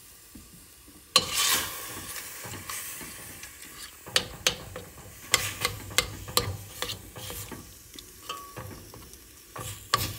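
Ground turkey sausage sizzling in a stainless steel pot, with a loud hiss flaring up about a second in. From about four seconds on, a metal spoon stirs the meat and knocks and scrapes against the pot in quick clinks.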